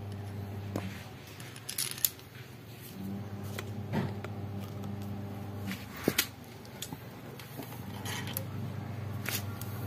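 A steel socket and extension bar clinking and tapping as they are handled and fitted onto a bolt, with a few sharp metal clicks, the loudest about two and six seconds in, over a steady low hum.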